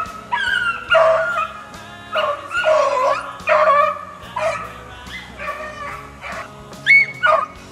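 Beagles baying on a rabbit's scent trail: a run of repeated drawn-out, bending hound calls, one or two a second, with two of the loudest near the end.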